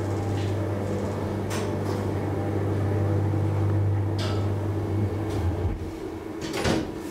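1974 DEVE hydraulic elevator's drive humming steadily as the car travels, fading out about five seconds in as the car comes to rest at the landing. A few sharp mechanical clicks come through it, and a louder clack follows near the end.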